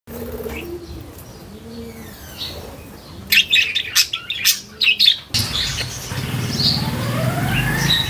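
Caged birds calling and chirping, with a run of loud, sharp screeches in the middle that stop abruptly, followed by a slow rising whistle near the end.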